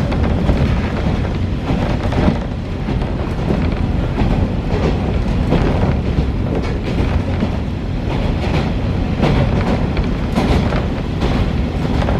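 Diesel railcar running along the track, heard from on board: a steady low rumble with occasional faint clicks of the wheels over the rails.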